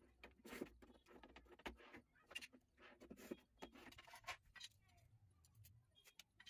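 Faint, irregular scrapes and clicks of a ceramic tile being slid onto and off the bed of a manual tile cutter and handled on a concrete floor.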